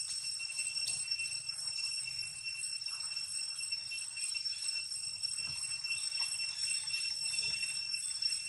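Steady high-pitched insect chorus, an unbroken ringing drone.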